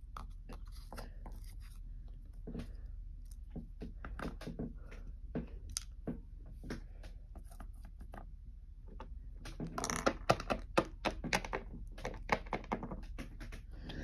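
Plastic Littlest Pet Shop figurines and small cardboard props being handled and set down on a wooden tabletop: scattered light clicks and taps, with a quicker, louder run of taps a little under ten seconds in.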